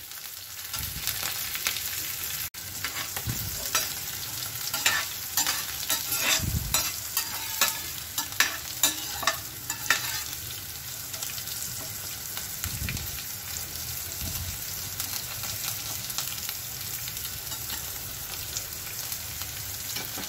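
Tadka of mustard seeds, chana dal and green chillies sizzling in hot oil in a stainless steel pan. For about the first ten seconds a metal spoon scrapes and clinks against the pan as it is stirred; after that there is only the steady sizzle.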